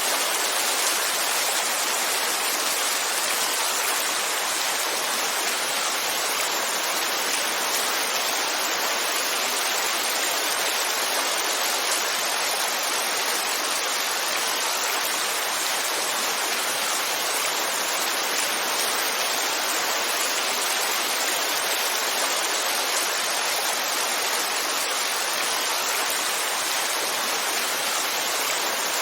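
Heavy rain falling: a steady, even hiss with no single drops, thunder or other events standing out.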